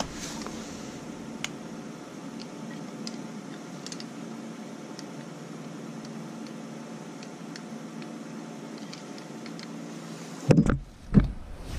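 Light clicks of small plastic and metal catch-can port fittings being handled over a steady low hum, then two loud dull thumps near the end.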